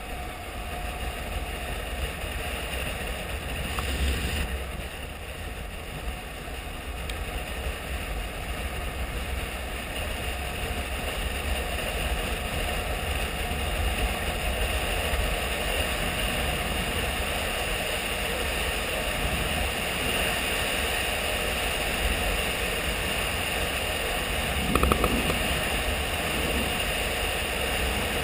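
Honda XRE 300's single-cylinder engine running at road speed on a dirt road, with wind rushing over the microphone. The sound grows slightly louder as the bike speeds up, and there is a brief louder knock near the end.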